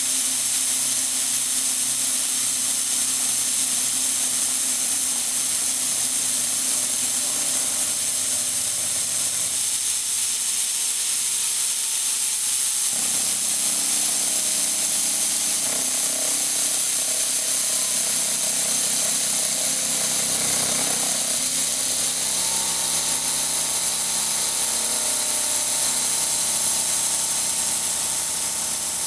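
Milling machine cutting a brass gear with a quarter-inch end mill under a coolant spray, roughing out the waste between the spokes: a steady loud hiss over a machine hum whose tones shift a few times.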